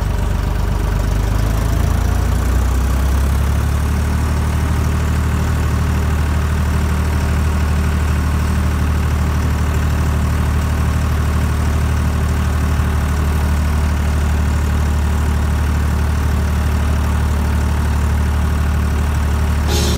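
Deutz-Fahr tractor's diesel engine running under way, heard from the driver's seat: a steady low drone whose revs step up a little in the first few seconds, then hold.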